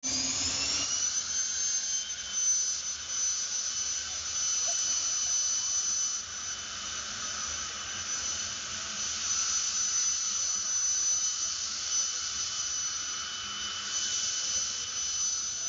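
Jet turbine engine of a pickup truck whining at a high pitch over a rushing hiss. The whine rises over about the first second and then holds steady.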